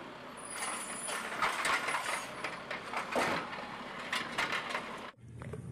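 Automated side-loader garbage truck lifting a wheeled trash cart with its mechanical arm: a steady mechanical noise with scattered clatter and clicks, which cuts off abruptly near the end.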